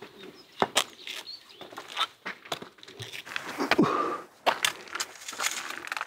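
Footsteps of a mountain porter climbing under an 80 kg load of cement on an A-frame carrier: irregular steps and knocks on rock.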